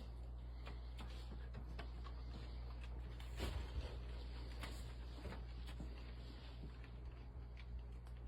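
Faint scattered small clicks and taps over a steady low hum, a few more of them together about three and a half seconds in.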